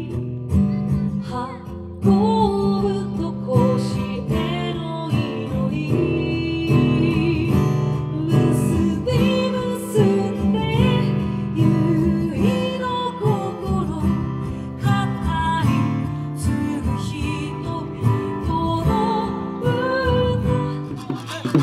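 A song with strummed acoustic guitar and a singer's voice.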